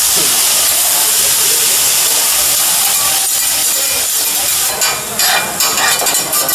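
Vegetables steaming and sizzling on a hot teppanyaki griddle: a loud, steady hiss. Near the end, metal spatulas start clattering and scraping rapidly against the steel plate.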